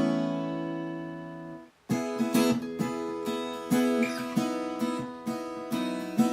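Acoustic guitar music: a strummed chord rings out and fades, then breaks off for a moment. After that, strumming starts again as a steady rhythm of strokes.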